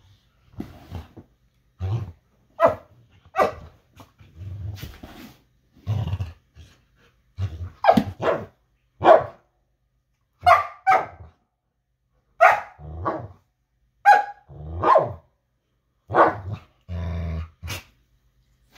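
Two golden retrievers play-growling at each other, with short barks and yips mixed in: a string of brief bursts about every second, some low grumbles and some higher-pitched, ending in a longer, steady growl near the end.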